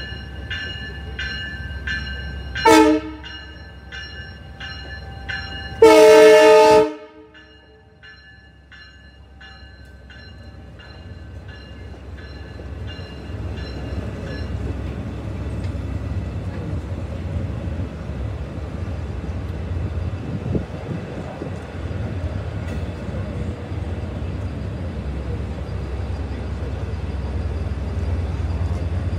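A grade-crossing warning bell rings in rapid, steady strokes. A train horn gives a short blast, then a longer and louder one a few seconds later. The rumble of a Long Island Rail Road diesel train of bi-level coaches then builds and holds as the train rolls through the crossing, and the bell is lost under it about halfway through.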